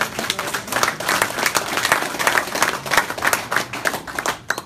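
A small group applauding, many hands clapping quickly, fading out near the end.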